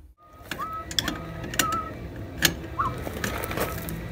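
Irregular metallic clicks and taps of hand tools working on a steering cable's end fitting, with a few short bird chirps.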